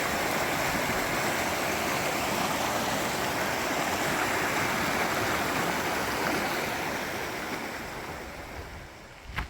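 Fast-flowing river water rushing steadily, fading over the last couple of seconds, with a single sharp tap just before the end.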